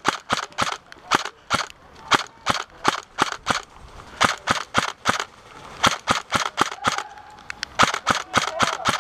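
Airsoft rifle firing strings of rapid single shots, several a second, in repeated volleys with short pauses between.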